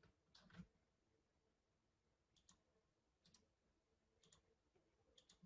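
Faint computer mouse clicks, several in quick pairs about a second apart, over near silence.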